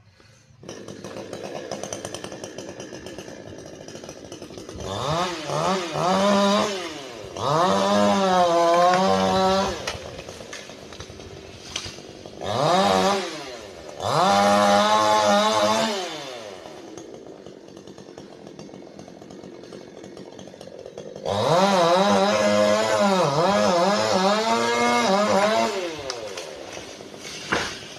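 Chainsaw idling, then revved up and cutting in three long bursts with shorter revs between, its pitch sagging and wavering under load and dropping back to idle after each cut.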